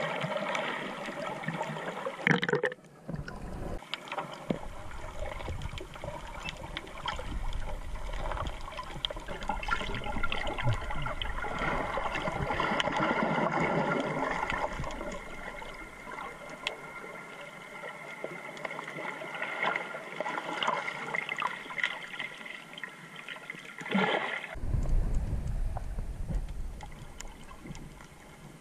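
Underwater sound picked up by a GoPro in its waterproof housing: a continuous wash of gurgling water and bubbles as snorkelers swim, with a faint steady hum beneath and a heavier low rumble near the end.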